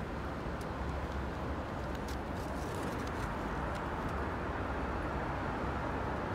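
Steady outdoor city noise: a low rumble and a wash of distant traffic, with a few faint clicks.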